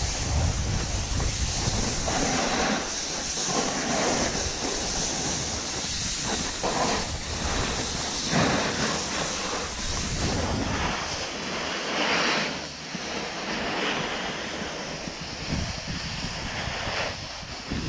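Snowboard sliding and scraping over packed snow, with wind rushing over a chest-mounted camera's microphone; the scraping comes in irregular surges as the board turns.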